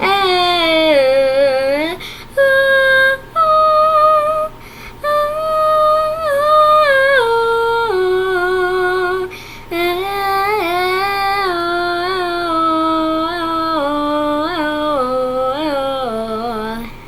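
A young girl singing a tune without clear words, holding notes that step up and down in pitch, with a few short breaks.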